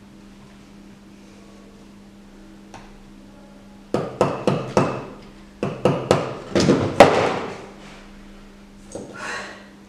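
Steel chisel chipping a plaster waste mold off a cast portrait head. After a quiet start there is a quick run of about a dozen sharp knocks, the loudest near the end, then a crumbling rattle as a section of the mold breaks away.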